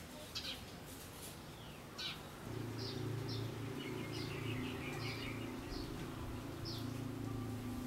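Sparrows chirping: repeated short high chirps, with a run of quick twittering notes in the middle. A steady low hum comes in about two and a half seconds in.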